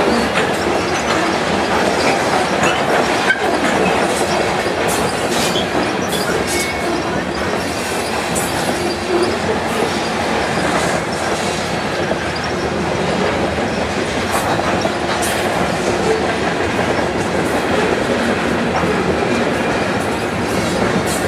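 Freight train of covered hopper cars and tank cars rolling past: steady wheel-on-rail noise with irregular clicking and clacking of the wheels over the rail joints.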